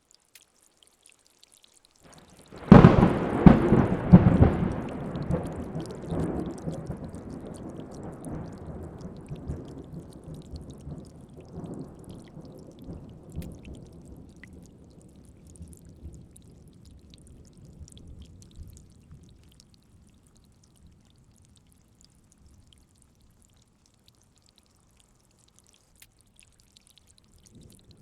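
A thunderclap about three seconds in: a sharp crack with a few quick follow-up strikes, then a rolling rumble that slowly dies away over about fifteen seconds.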